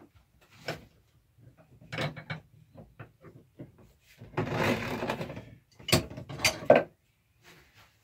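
Hand-cranked winch drawing a wooden roll-off observatory roof closed along its rails: scattered clicks and knocks, a longer rolling rumble about four and a half seconds in, then sharp loud knocks around six seconds.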